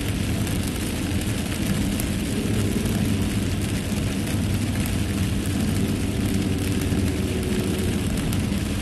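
Steady noise inside a car driving through a downpour: a low engine hum under an even hiss of tyres on the wet road and rain on the car.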